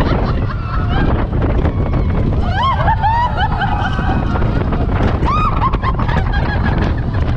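Slinky Dog Dash roller coaster in motion: a steady rush of wind on the microphone over the rumble of the train on the track, with short rising-and-falling whoops from riders around the middle.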